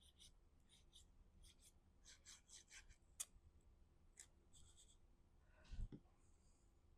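Faint rubbing and light scraping of cardstock pieces being handled and pressed into place by hand, in short scattered strokes. A sharp tick comes about halfway through, and a dull knock on the table near the end.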